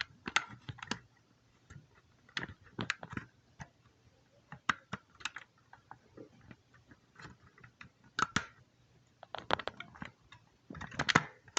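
Irregular small clicks and taps, in clusters of a few, as the plastic pawl arm and cam of a washing-machine timer are pushed down and handled by hand.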